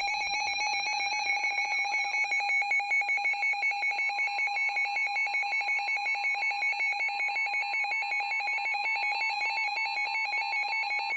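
Weather radio receiver's electronic alert alarm, a loud, fast, even warble of high beeping tones that signals an incoming warning. A faint steady tone near 1 kHz, the 1050 Hz weather radio warning tone, joins underneath from about four seconds in.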